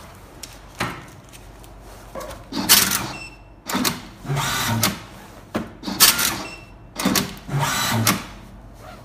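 Tabletop automatic banding machine strapping a stack with tape, twice. Each cycle is a sharp click and a short motor whir as the band is pulled tight, sealed and cut, then a steadier whir lasting about half a second.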